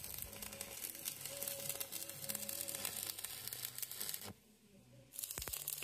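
Faint crackling and hiss of electric arc welding, full of small sharp clicks, that cuts out briefly about four seconds in.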